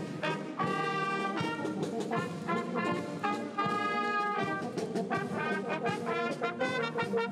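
Brass band playing a march, with trumpets and trombones holding chords over regular drumbeats.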